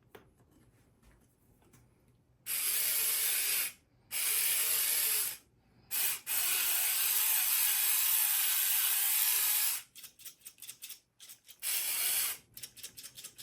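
Hand-twisted pepper mill grinding in four bursts, the longest about three and a half seconds, with small clicks between turns.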